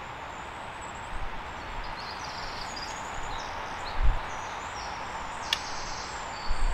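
Steady outdoor background hiss of a quiet wood, with a dull low bump about four seconds in and a single sharp click about a second later.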